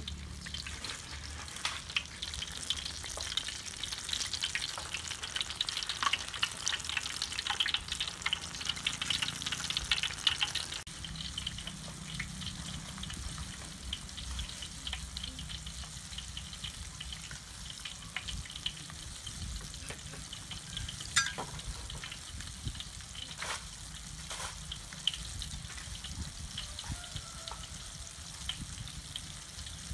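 Batter-coated banana pieces deep-frying in hot oil in a wok, crackling and sizzling. The crackle is dense and loud for about the first ten seconds, then settles to a quieter steady sizzle, with a few sharp clicks in the second half.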